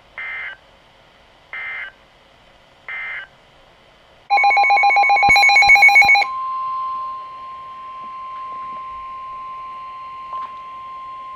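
NOAA Weather Radio broadcast signalling: three short buzzing SAME/EAS digital data bursts closing out the previous alert, then a weather radio receiver's rapid alert beeping for about two seconds, then the steady 1050 Hz weather radio warning alarm tone held for about five seconds at a lower level.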